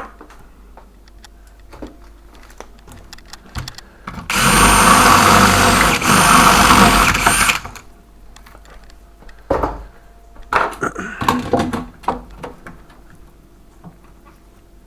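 Power drill running at full speed for about three seconds in two runs with a short break between, its motor whine high and steady. A few sharp clicks and knocks follow.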